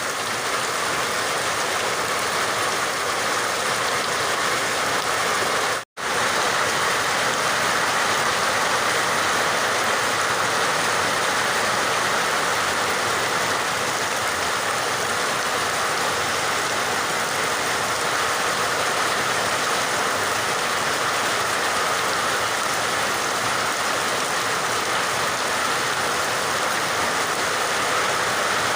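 Steady rain falling, an even hiss of water. About six seconds in the sound cuts out completely for an instant, then carries on unchanged.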